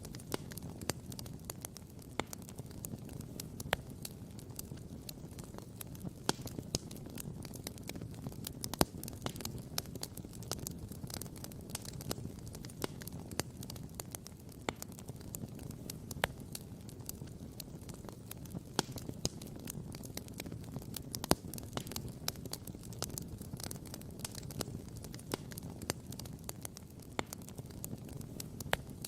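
Wood campfire crackling, with frequent sharp pops, a few of them louder, over a steady low rumble.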